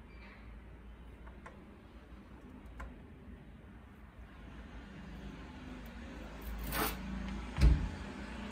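Hands handling aluminium scooter engine parts on a metal workbench: a few faint clicks, a brief scrape, then a short dull knock near the end as the cylinder is picked up and brought to the piston.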